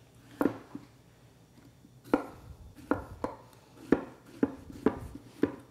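Chef's knife slicing zucchini into thin coins on a wooden cutting board: about eight sharp chops at an uneven pace, with a gap of over a second after the first.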